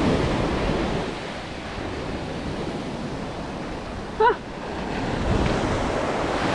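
Surf washing on the shore, swelling and easing, with wind on the microphone. About four seconds in, a single brief high squeak stands out.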